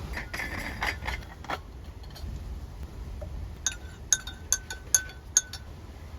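Small glass or metal objects clinking: about six sharp clinks in a couple of seconds, each ringing briefly at the same pitch, after a few softer rustling clicks. A low wind rumble runs underneath.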